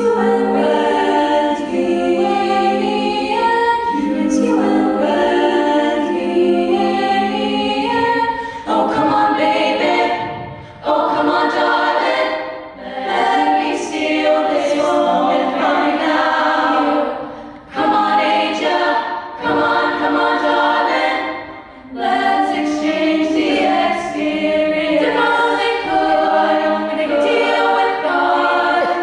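An a cappella vocal ensemble sings in several-part harmony without instruments, with short breaks between phrases.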